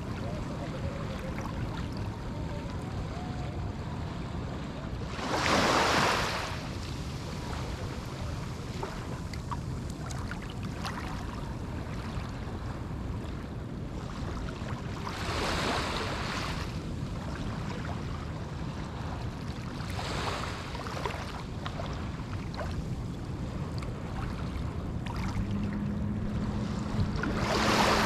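Small ocean waves breaking on a sandy beach: a steady low surf rumble with four waves washing in, the loudest about six seconds in and the last near the end. A steady low hum comes in a few seconds before the end.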